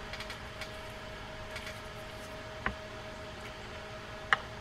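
Small clicks and taps of metal and plastic fishing-reel parts being handled and fitted together as a spinning reel's gearbox is reassembled. A few faint ticks come near the start, then a sharper click a little past halfway and another near the end, over a steady faint hum.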